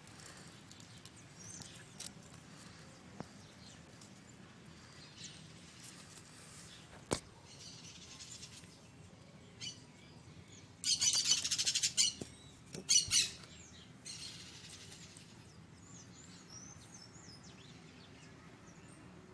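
Small birds chirping, with a loud close burst of rapid chirping about eleven seconds in and again shortly after. A few sharp clicks come in between.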